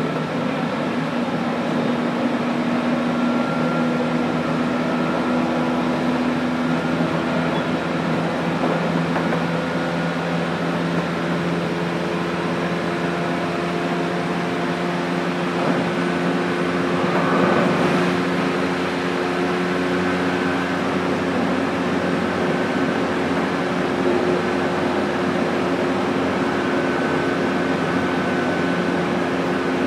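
Running sound inside a JR Kyushu 817 series 3000 subseries electric train, in motor car MoHa 817-3002 with its Hitachi IGBT inverter drive: a steady hum made of several held tones that shift slightly in pitch, over wheel and track noise. A rougher, noisier stretch comes a little past halfway.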